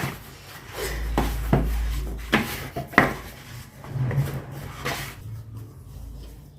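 Hands kneading soft dough, with irregular knocks and rubbing as it is pressed, folded and turned.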